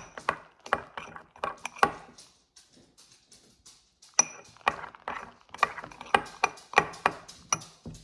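A series of sharp, irregular taps and knocks with a slight ring, about two or three a second, pausing for about two seconds in the middle.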